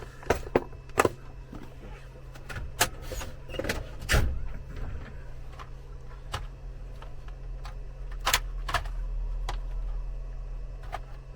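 Scattered sharp clicks and knocks of tools and cables being handled on a workbench, over a steady low hum.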